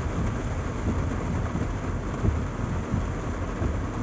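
Heavy rain falling on a car, heard from inside the cabin, over a steady low rumble of the moving vehicle.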